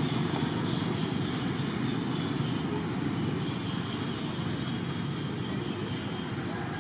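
Steady low rumble of outdoor background noise, with a faint high hiss above it.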